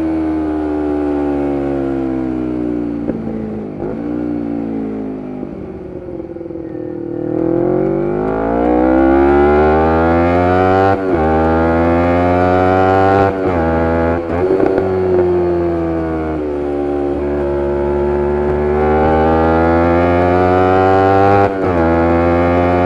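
2011 Kawasaki Ninja 250R's parallel-twin engine through a full Graves race exhaust, heard while riding. The revs fall steadily as the bike slows for the first several seconds, then it accelerates, with brief breaks in the sound at gear shifts. It holds a steady speed for a few seconds, then revs rise again near the end.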